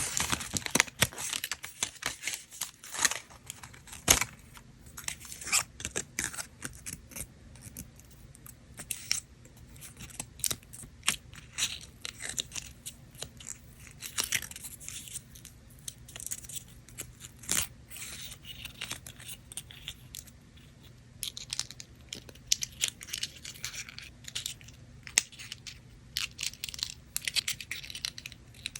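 Paper parts of a Rolife miniature kit being handled close up, crinkling and tearing in irregular bursts of sharp crackles and clicks.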